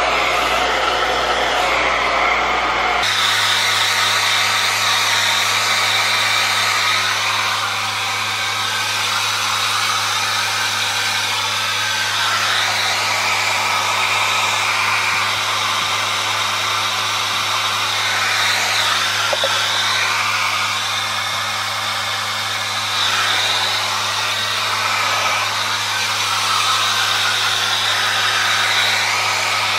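Handheld hair dryer blowing steadily while drying hair, with a low motor hum under the rushing air. Its sound shifts abruptly about three seconds in, then wavers a little in loudness as it is moved around the head.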